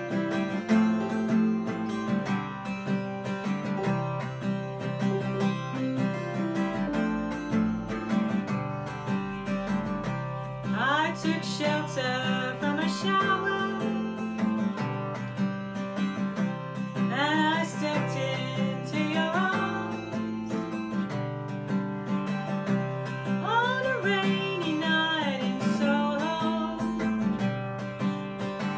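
Instrumental break of a slow ballad on acoustic guitar and piano, with a bending lead melody line coming in three phrases over the chords.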